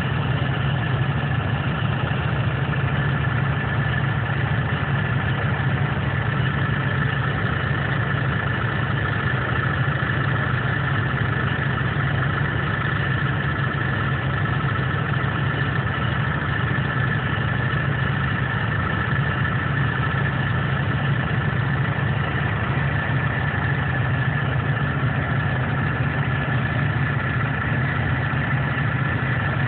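A steady engine hum at an even level, with a few steady high tones above it; the pitch and loudness never change.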